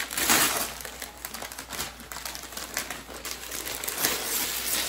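Tissue paper and wrapping paper rustling and crinkling as a wrapped gift box is handled and opened, loudest right at the start.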